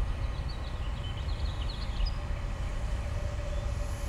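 Wind rumbling on the microphone, with a faint steady hum from the 3-inch FPV drone's propellers cruising at part throttle, and a few faint high chirps in the first couple of seconds.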